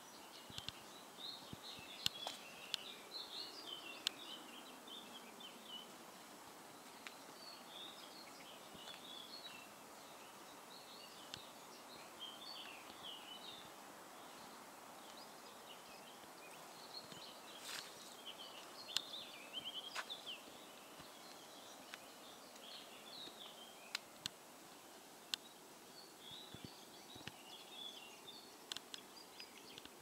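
Small birds chirping and twittering faintly over a steady outdoor hiss, with a few sharp clicks scattered through.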